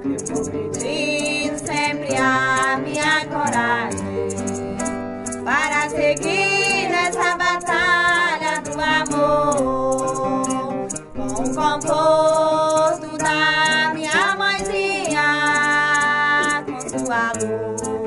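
Music: a Santo Daime hymn, a singing voice over acoustic guitar. The voice holds long notes and slides between them.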